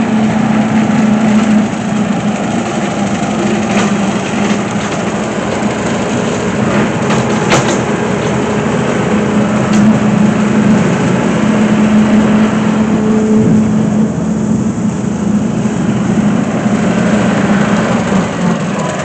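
An engine running steadily with a constant low hum, with a few sharp knocks along the way.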